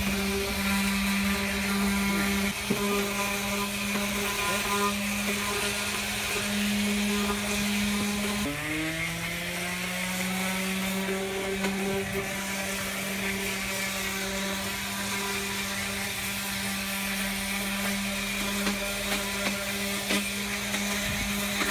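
Handheld electric random orbit sander running steadily, lightly sanding painted wood to distress the finish. Its pitch dips about eight seconds in and climbs back.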